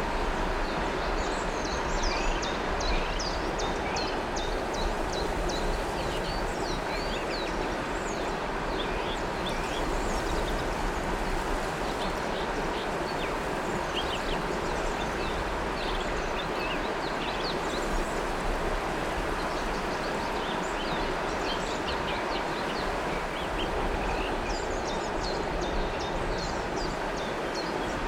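River water flowing steadily, with many small birds chirping in quick, high notes over it, in flurries now and then.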